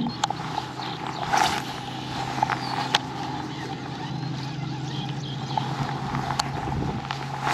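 Torqeedo electric kayak motor running with a steady hum, with a few sharp clicks and knocks as the rod and lure are handled and cast.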